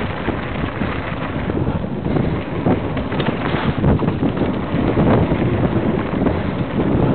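Wind rushing over a head-mounted camera's microphone as a mountain bike descends a dirt singletrack at speed, with many short knocks and rattles of the tyres and bike over bumps, a little louder after about two seconds.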